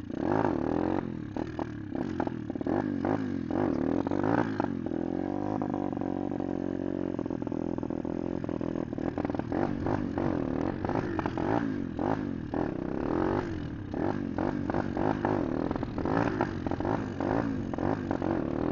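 125 cc pit bike engine being ridden hard, its pitch rising and falling over and over as the throttle and clutch are worked to pop wheelies, with a steadier stretch about five seconds in. Gusts of wind buffet the microphone throughout.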